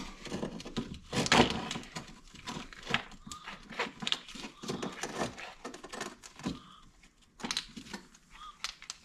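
Irregular clicks, knocks and rattles of hand work on a rammer's recoil starter and pull cord, the loudest knock about a second and a half in.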